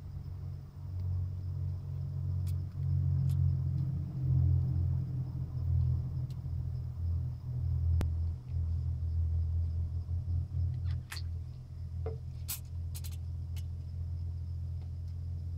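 A steady low rumble runs underneath, swelling and easing. A few light sharp clicks and rattles come about eleven to thirteen seconds in as the factory fuel pump and its sleeve are worked out of the plastic fuel-sender module.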